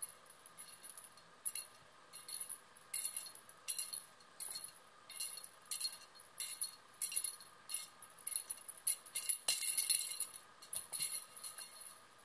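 A cat toy with a bell or rattle inside, shaken in short, irregular jingling bursts, a few a second, busiest about nine to ten seconds in.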